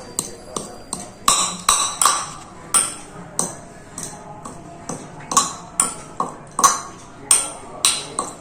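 Cloves being pounded with a pestle in a mortar: about two sharp strikes a second at an uneven pace, each with a short metallic ring.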